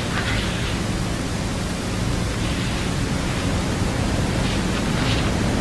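Steady hiss of background noise with a faint low hum underneath, and a few faint short sounds over it.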